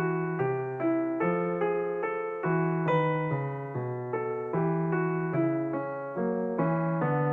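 Piano music: a steady run of notes, about two to three a second, over a lower bass line.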